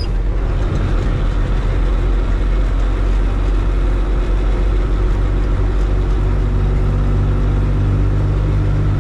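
Tata 1613 container truck's diesel engine running steadily under way, heard from inside the cab together with road noise.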